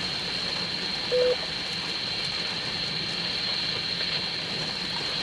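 Two-way radio speaker left open on the amateur radio net after a transmission: a short beep about a second in, then steady hiss with a thin high whine.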